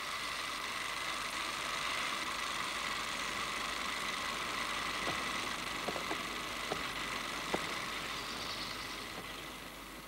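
A movie camera running with a steady mechanical whir and a few faint ticks around the middle. The whir fades out near the end.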